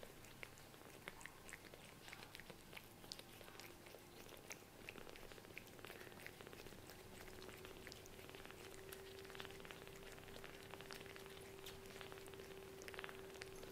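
Faint small clicks and smacking of newborn kittens suckling at their mother cat while she licks them. A faint steady hum comes in about halfway through.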